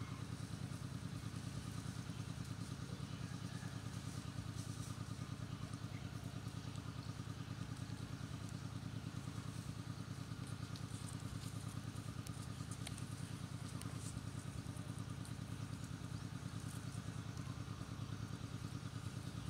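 A small engine running steadily at idle: an unchanging low hum with a fast, even pulse, and a few faint ticks above it.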